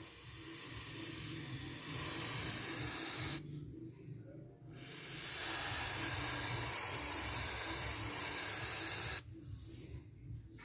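Aerosol chain-care spray hissing onto a motorcycle chain in two long sprays of several seconds each, the second cutting off suddenly.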